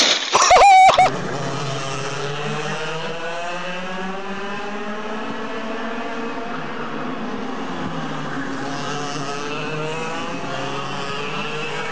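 Racing kart engines running around a street circuit, their engine notes slowly rising and falling as the karts lap. A loud, short, high-pitched squeal comes within the first second.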